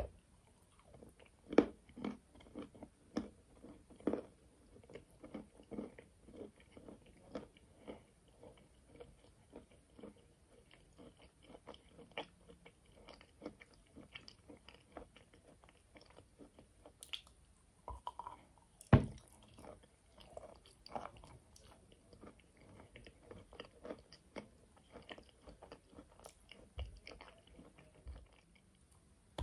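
Biting and chewing of a moist clay shell with a white paste filling, close to the microphone, made as fake eating that is not swallowed. Irregular bites and chews run throughout, with the sharpest bites about a second and a half in and again around nineteen seconds.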